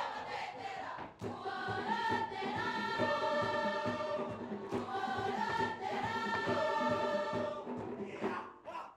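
A Cook Islands performing group singing together in held, shifting chords over an even, steady beat.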